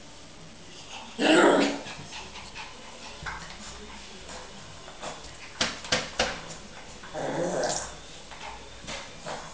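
Lhasa Apso puppy barking twice at its own reflection, two short loud barks about six seconds apart. Between them come a few quick sharp taps.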